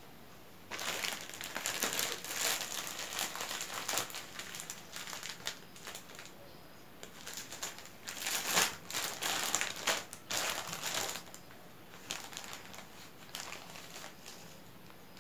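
Thin clear plastic bag crinkling as it is handled and opened, with sai mai (Thai spun-sugar threads) being pulled out of it. The crinkling starts about a second in, is dense and loud until about eleven seconds, then turns into softer, sparser rustles.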